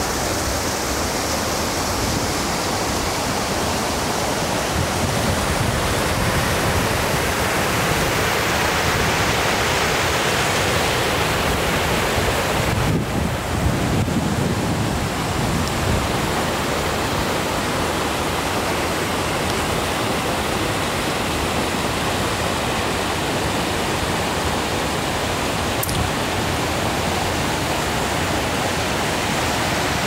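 Steady rush of the Fardagafoss waterfall and its stream cascading over rocks below.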